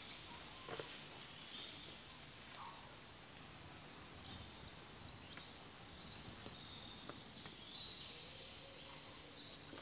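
Quiet outdoor ambience: a steady low background noise with faint, high bird chirps scattered through it.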